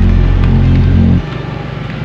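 Background music with a heavy, deep bass line that drops out sharply just over a second in, leaving quieter music.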